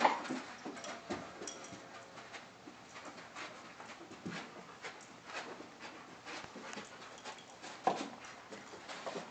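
A dog panting softly as it plays with a ball, with faint scattered clicks and one short, louder sound near the end.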